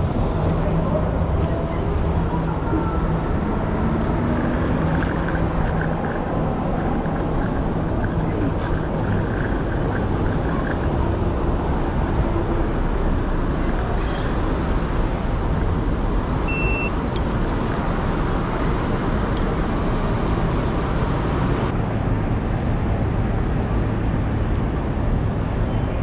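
Midtown street traffic heard from a moving scooter: a steady rumble of engines and tyres, with a truck's engine hum alongside for the first several seconds.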